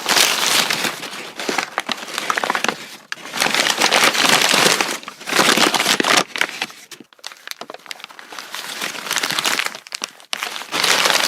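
A brown paper bag being crumpled and handled: dense crinkling and crackling paper in bursts a second or two long, with brief pauses between them.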